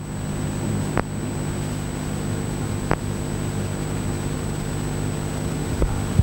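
Steady low electrical or ventilation hum of the room and sound system, with a few faint clicks.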